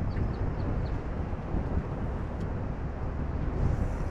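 Wind rumbling on the microphone over the wash of surf, a steady noise with a few faint ticks in the first half second.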